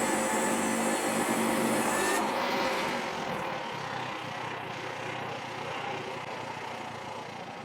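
Frontier OS27 portable bandsaw mill running with its blade sawing through a log. The high cutting hiss stops abruptly about two seconds in as the blade leaves the wood, and the engine keeps running, gradually getting quieter.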